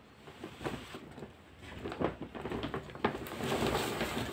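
Clothes on a plastic hanger being handled and set aside: fabric rustling with scattered light knocks, a sharper click about three seconds in, then a longer rustle.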